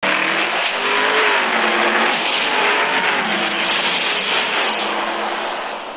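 Racing-car sound effect: an engine revving, its pitch rising and falling a few times over a dense hiss of tyre and road noise, easing off slightly near the end.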